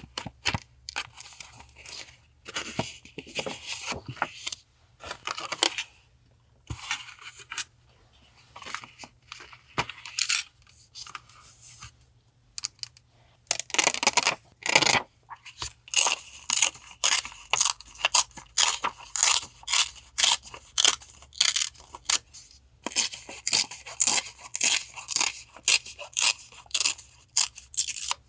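Paper being handled and torn for collage journaling, then from about halfway through, scissors cutting paper in quick, repeated snips.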